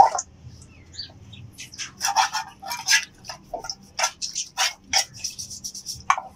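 Small brush scrubbing the inside of a rusted steel bowl: a quick series of scratchy strokes, about three a second, starting about two seconds in.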